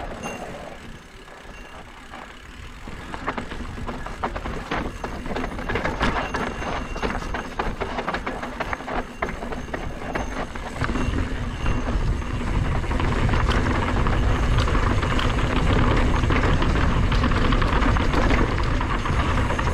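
Mountain bike riding fast down a dirt trail: tyres crunching over the dirt and the bike rattling in quick clicks, under wind rushing over the camera microphone. It grows louder over the first dozen seconds or so as the bike picks up speed, then stays loud.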